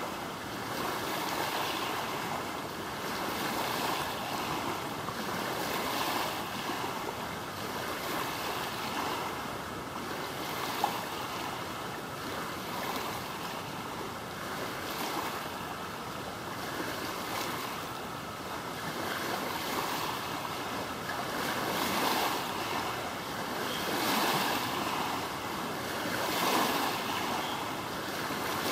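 Small waves washing on open water: a steady rush of water that swells and eases every second or two. There is a single sharp click about eleven seconds in.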